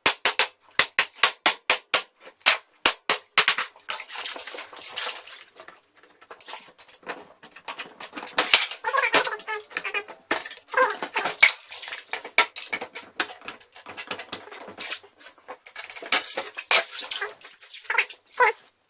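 Metal safe deposit boxes being broken open: a quick run of sharp metallic bangs, about four a second for the first few seconds. Irregular clattering and rattling of loose metal follows.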